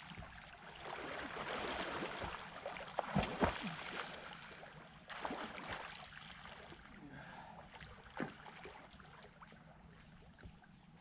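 Lake water splashing and lapping, with a few sharper splashes about three seconds in and again around five and eight seconds.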